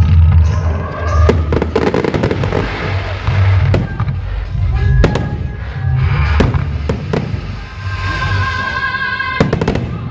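Aerial firework shells bursting overhead in a string of sharp bangs and crackles, with a quick cluster of bangs near the end.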